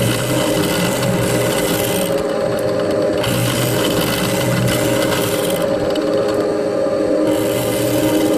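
Milling machine running steadily with its cutter milling away plastic from the gearbox housing: a constant motor hum under a rasping cutting noise that eases off about two seconds in and again about six seconds in, then comes back.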